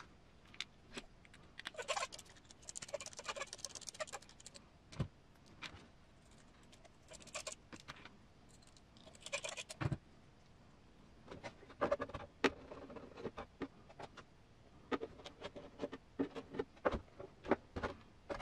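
Small hard plastic kit parts clicking and rattling together as they are picked up and handled on a desk, with scattered sharp clicks and a few short stretches of rattling.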